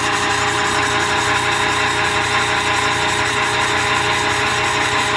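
Raijin flat-die feed pellet machine running steadily while pressing feed mash into pellets: a constant mechanical hum with a steady whine over it.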